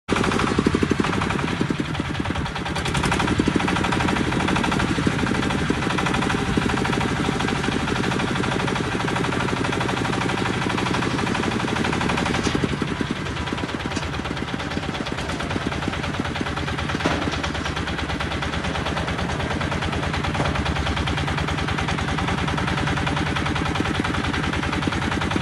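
Small single-cylinder diesel engine of a tracked crawler dumper running under way, with a rapid, even chugging that stays steady throughout.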